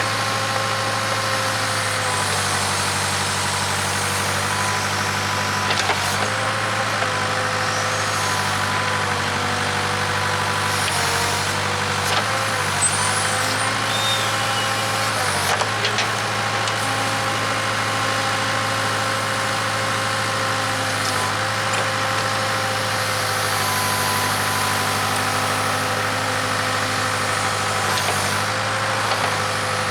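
Case 580K backhoe's four-cylinder diesel engine running steadily at working revs while digging, its pitch dipping briefly under hydraulic load a few times. A few sharp knocks from the bucket and linkage come through around the middle.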